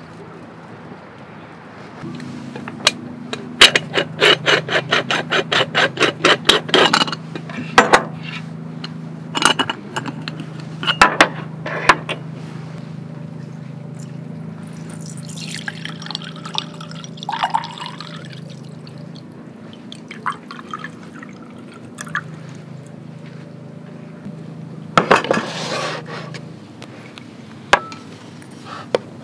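Making coffee with a Bialetti Moka Express aluminium stovetop pot: quick runs of light metal clinks as a spoon and the pot's parts are handled, with liquid pouring for a few seconds about halfway through.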